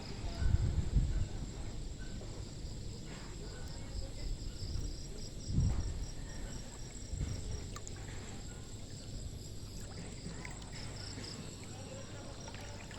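Insects chirping steadily in a high, pulsing trill, with a few short low rumbles on the microphone about half a second in and again around the middle.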